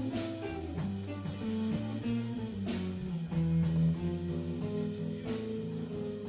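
Live instrumental jazz from an electric guitar, bass and drums trio. The guitar picks a melody of single notes over held bass notes, with three sharp accents spaced about two and a half seconds apart.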